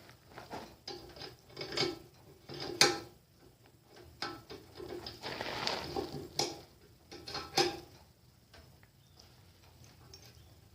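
Irregular metallic clicks, knocks and a brief scrape of hand work fitting a bolt on the dune cycle's front end, with the two loudest knocks about three seconds in and about seven and a half seconds in.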